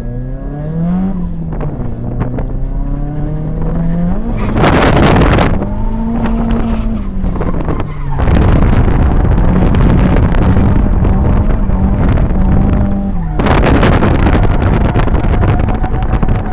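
Nissan 240SX (S14) engine heard from inside the cabin, revving up and down as it is driven through a drift course. There are two loud bursts of tire noise from the sliding car, about five seconds in and again about thirteen seconds in.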